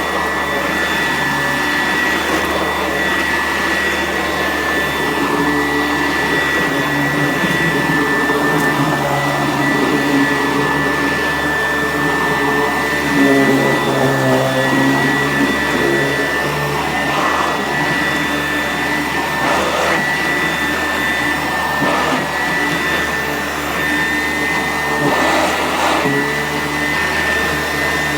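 Sanitaire S663 vacuum cleaner running steadily, its motor giving a constant high whine over a broad drone, with its lower tone shifting a little and briefly louder around the middle.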